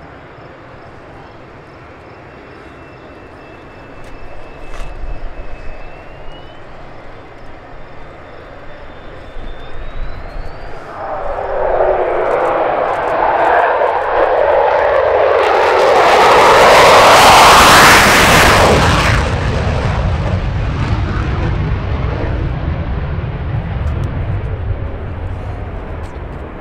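USAF F-16 Fighting Falcon fighter jet making a fast low pass. Its jet noise swells from a faint distant rumble to a loud, hissing peak as it goes by, about two-thirds of the way in. It then fades to a lower rumble as the jet climbs away.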